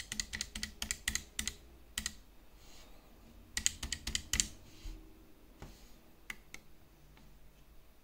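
Clicking of plastic keys on a 12-key matrix keypad as a card number and PIN are typed in: a quick run of presses in the first two seconds, another run around four seconds in, then a few single clicks.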